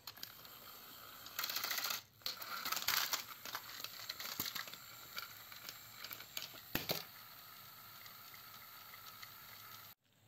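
Battery-powered toy train's small electric motor whirring steadily as it drives along blue plastic track. There is handling clatter in the first few seconds and a few sharp clicks of the plastic wheels and track joints.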